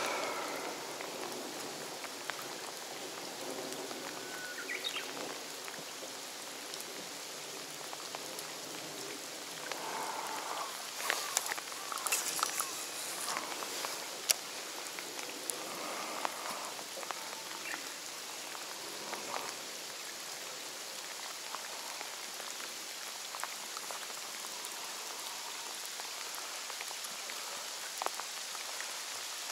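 Steady rain falling on the surface of a reservoir, an even hiss of drops on the water. About halfway through there are a few sharp clicks and knocks, one louder than the rest.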